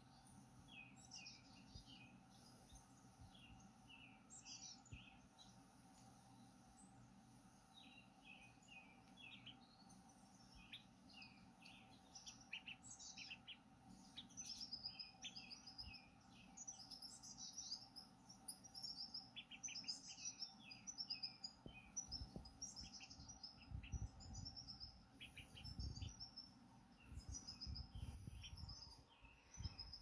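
Recorded birdsong played from an iPad's speaker: many quick chirps and twitters, growing busier about halfway through. Low rumbling and bumping noise comes in over the last several seconds.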